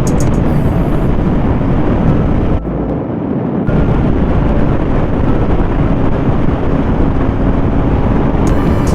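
Motorcycle engine and wind rush at high speed, a steady loud noise that briefly drops away about three seconds in.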